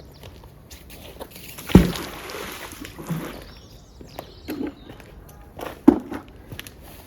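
Footsteps, with two sharp thumps about four seconds apart. The first thump is the loudest and is followed by about a second of hiss.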